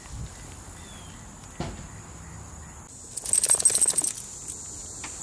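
Insects trilling steadily in the background, with a single click under two seconds in and a loud rattle of rapid clicks lasting about a second, starting about three seconds in.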